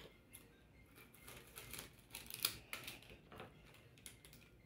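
Faint crinkling and clicking of a plastic packet of ground chile being handled and opened over a bowl, in irregular small crackles with a few sharper ones about halfway through.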